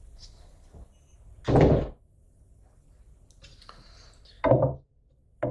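Long pieces of scrap aluminum extrusion set down on a plywood tabletop with two heavy thuds, about a second and a half in and again about four and a half seconds in, with faint handling and rustling between them.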